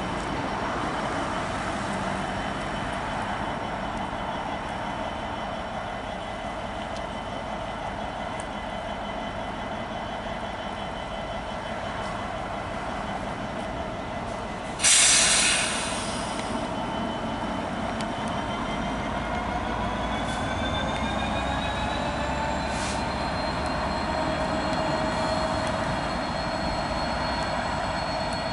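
Class 66 diesel-electric locomotive, with its EMD two-stroke V12, running steadily as it moves slowly over a steel girder bridge. About halfway through comes a sudden loud burst of hiss lasting about a second and a half, and in the second half thin squealing tones slowly rise in pitch.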